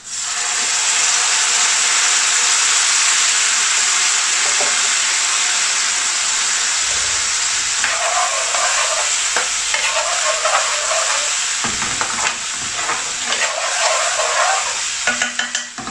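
Onions frying in oil in an aluminium pan sizzle hard as about a third of a cup of water is poured into the hot oil, a steady hiss that starts suddenly. From about halfway, a metal spoon scrapes and clinks against the pan as the onions are stirred, and the sizzle drops away near the end.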